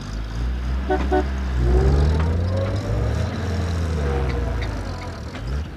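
Engines of a jeep and trucks running and revving as they drive over a rough dirt track, the pitch rising and falling.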